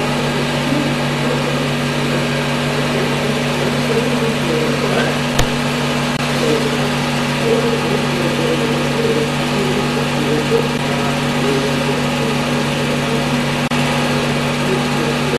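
Steady low hum with a hiss over it, the kind of room tone a running motor or fan gives, with a few faint wavering tones above it and one faint click about five seconds in.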